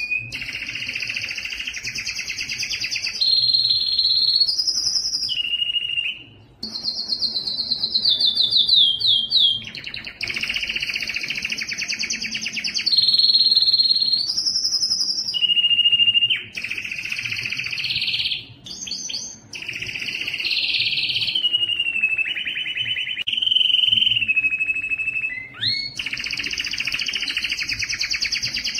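Male domestic canary singing, excited and in breeding condition: long, rapid trilled phrases follow one after another, with a run of falling notes about seven to nine seconds in and brief breaks between phrases.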